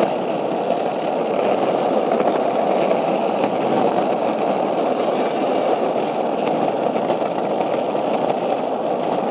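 Steady rushing road noise of travelling along a street, with no clear engine tone standing out.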